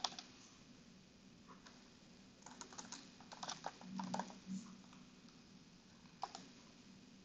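Faint typing on a computer keyboard: scattered keystrokes, with a busier run of keys from about two and a half to four and a half seconds in and a last few keys about six seconds in.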